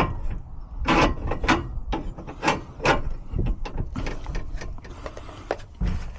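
A handful of sharp metallic knocks and clicks at irregular intervals, over a low rumble: gate hardware such as a drop bolt and latch being worked.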